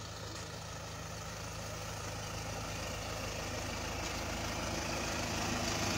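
Engine of a Toyota Coaster minibus stuck in deep snow, idling steadily and growing gradually louder.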